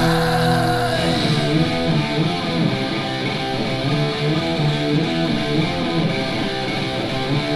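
1980s heavy metal song: the full band thins out about a second in, leaving a guitar passage of held notes without the heavy bass and drums.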